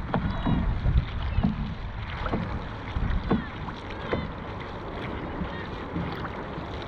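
Dragon boat crew paddling: paddle strokes in the water at roughly one a second, weaker after about four seconds, over wind noise on the microphone.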